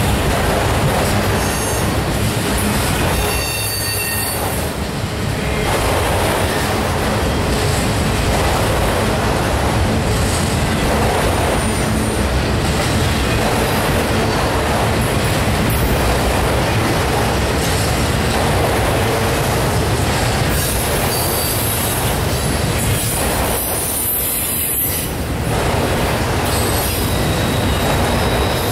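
Freight train of enclosed autorack cars rolling past close by: a loud, steady rumble and rattle of steel wheels on rail, with a brief high wheel squeal a few seconds in.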